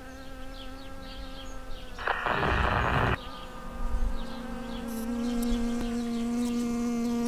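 A bee buzzing in flight: one steady droning hum that grows a little louder about five seconds in. About two seconds in, a loud burst of rushing noise lasts roughly a second over the buzz.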